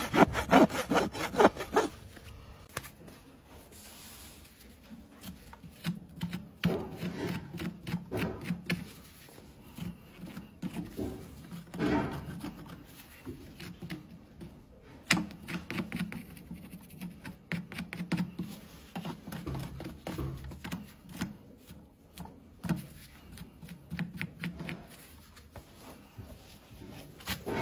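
Horse hoof being trimmed: quick repeated scraping strokes on the hoof horn for the first couple of seconds, then quieter, intermittent scraping and rubbing on the overgrown hoof.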